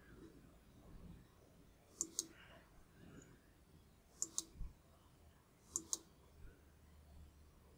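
Computer mouse button clicks: three pairs of short, sharp clicks about two seconds apart, over faint room tone.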